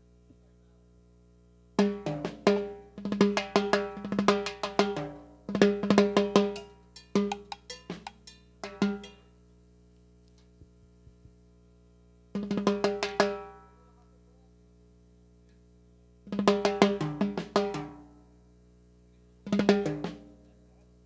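Drum kit played in short bursts of quick fills on the snare and toms, each hit ringing out, with pauses of a second or more between bursts, as in a drum sound check. A faint steady hum runs underneath.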